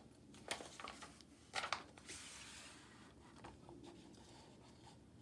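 Page of a paperback picture book being turned: a few light taps of handling, then a brief soft paper rustle about two seconds in.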